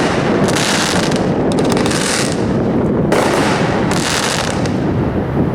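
Legend 500-gram consumer fireworks cake firing its shots: about four separate bursts, each lasting well under a second, over a steady low rumble.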